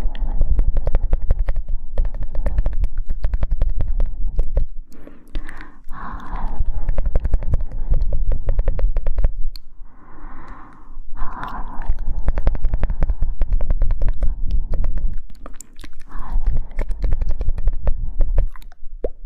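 Close-miked mouth sounds: fast runs of wet tongue clicks and lip smacks, broken by a few breathy puffs.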